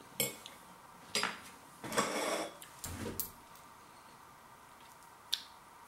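Metal fork clinking and scraping against a plate: a few short clinks, a half-second scrape about two seconds in, a soft knock just after, and one last clink near the end.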